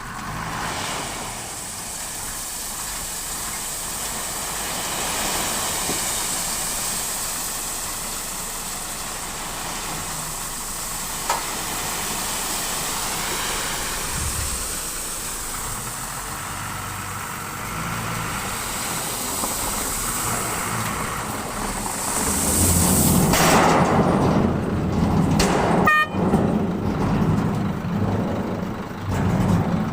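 Vehicle engine running steadily, growing louder about three quarters of the way through, with a brief horn-like toot near the end.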